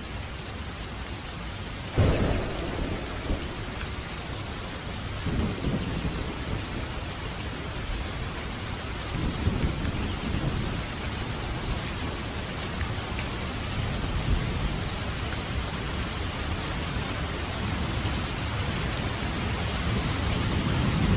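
Steady rain falling, with thunder: a sudden clap about two seconds in, then low rolling rumbles that come and go and swell again near the end.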